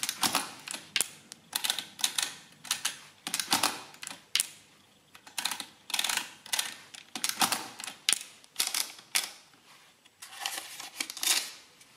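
Lipsia Addi 7 mechanical adding machine with printing mechanism clattering in repeated clusters of sharp metal clicks and clacks as its side print lever is pulled and its number slides are set, each lever pull printing a line on the paper tape.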